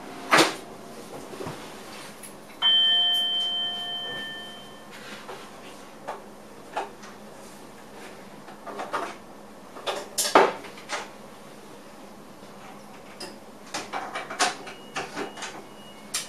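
A single chime rings out in a train driver's cab about two and a half seconds in, fading over about two seconds. Scattered short knocks and clicks of the cab and running gear come and go around it.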